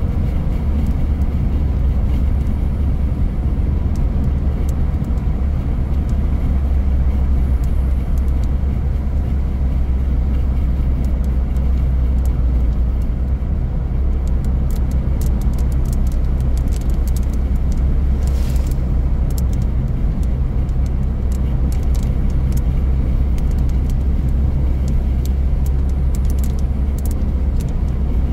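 Car cabin road and engine noise while driving: a steady low rumble. About two-thirds through comes a brief hiss as an oncoming car passes, and scattered faint ticks are heard in the second half.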